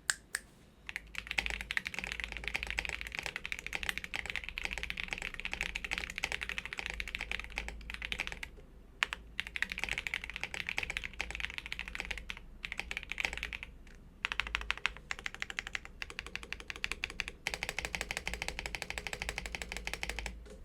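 Typing test on a stock Vortexseries Mono gasket-mounted tenkeyless mechanical keyboard with five layers of dampening and south-facing switches: fast, continuous keystrokes starting about a second in, with brief pauses twice and a quicker burst of typing near the end.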